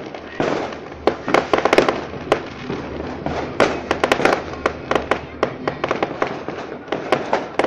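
Fireworks going off in rapid succession: many sharp bangs and crackles over a continuous rumble, thickest in clusters near the start and around the middle.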